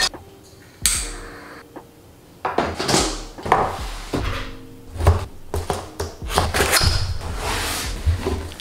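Cardboard shipping box being handled and opened on a desk: irregular knocks, thuds, scrapes and rustling of cardboard and packaging, ending with the laptop in its sleeve being slid out of the box. A short sharp noise comes about a second in.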